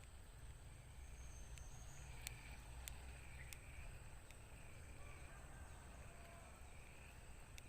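Near silence: faint outdoor ambience with a thin, steady high-pitched hum and a few faint ticks about two to three and a half seconds in.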